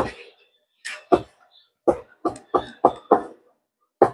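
Cleaver chopping cooked intestines on a plastic cutting board: a series of about eight sharp knocks, settling near the middle into a steady rhythm of about three chops a second.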